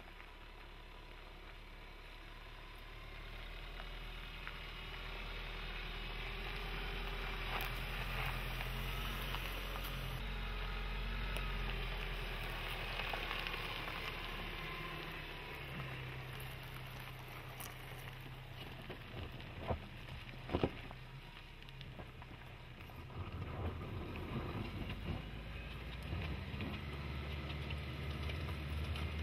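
Isuzu D-Max's 1.9-litre common-rail diesel running at low revs while the truck crawls off-road, with tyres crunching over loose dirt and gravel. A few sharp knocks come about twenty seconds in.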